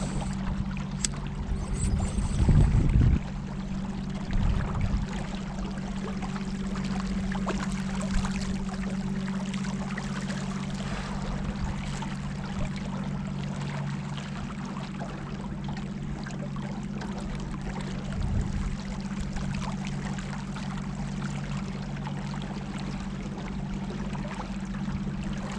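Boat motor running at a steady pitch, with water rushing past the hull. A few low gusts of wind on the microphone, the loudest about two and a half seconds in.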